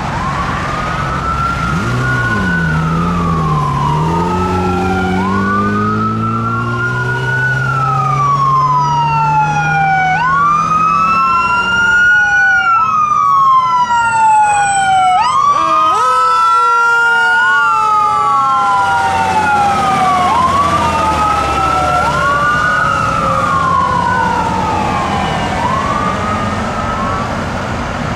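Fire engine's electronic siren on wail, sweeping up and down about every two seconds, with a lower tone beneath it that dips and then climbs slowly. About halfway through, the siren's pitch drops as the truck passes and moves away.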